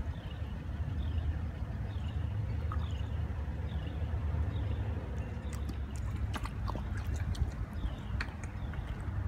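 A steady low rumble with a bird calling over it, repeating a short falling note a little more than once a second. A few sharp clicks come in the second half.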